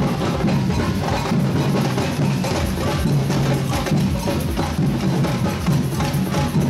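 Carnival percussion band playing drums, a steady driving rhythm of drum strokes with a deep bass drum under them.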